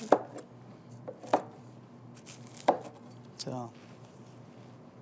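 Chef's knife cutting down through baked puff pastry onto a wooden cutting board: three sharp knocks, about a second and a third apart.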